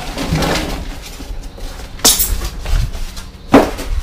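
Cardboard box and packing foam being handled and pulled apart, rustling and scraping, with two sharp knocks, one about two seconds in and a louder one near the end.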